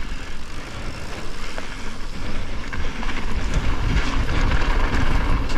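Wind rumbling over a GoPro's microphone while a mountain bike rides down a dirt trail, with the tyres hissing over dirt and gravel and a few small clicks and rattles. The rush grows louder from about three seconds in.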